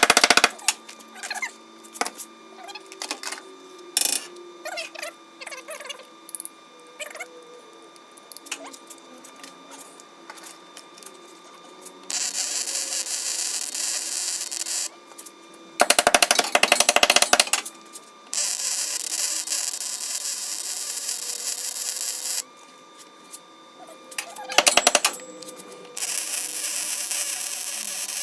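Arc welding on a car's frame connectors: the welder crackles in several short bursts and runs in longer stretches of steady sizzling hiss, with pauses between the welds.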